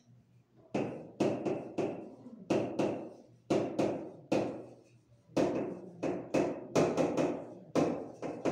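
Chalk knocking and tapping against a blackboard in quick, irregular strokes, about two to three a second, each with a short ringing tail.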